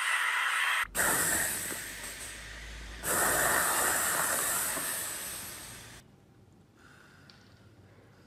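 Steady hissing in two spells: it breaks off just under a second in, resumes and fades, then comes back louder about three seconds in and dies away after about six seconds. Faint ticks follow.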